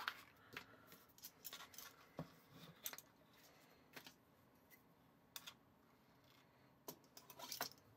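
Faint, scattered small clicks and scrapes of a metal measuring spoon scooping baking powder from a can and being leveled off with a knife against the can's rim, with a few more clustered near the end.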